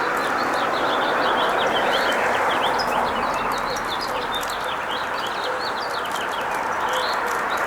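Many small birds chirping in a busy, continuous chatter over a steady rushing noise.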